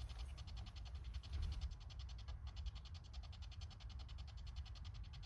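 Spirit box radio sweeping through the FM band, giving a fast, even chopping of static and snatches of radio sound, with a steady low rumble underneath.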